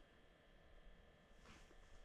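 Near silence, with a faint steady background hum.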